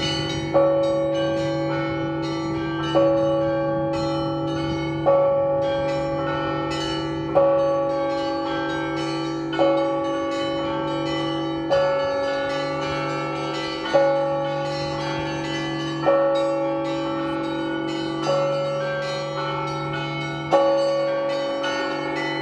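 Russian Orthodox church bells rung in a peal: a heavy bell struck about every two seconds while smaller bells chime quickly in between, with the deep bells ringing on underneath.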